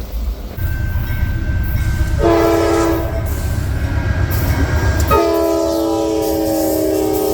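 A locomotive's multi-note chime horn sounding a short blast about two seconds in and a longer one about five seconds in, over the low rumble of the train.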